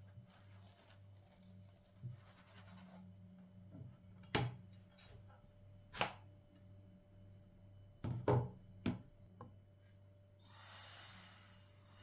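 Crêpe-making handling sounds: a silicone spatula scraping under a crêpe in a nonstick pan, then several sharp knocks and clatters of the pan and plate against the glass hob, over a faint steady low hum. A soft rushing noise starts near the end.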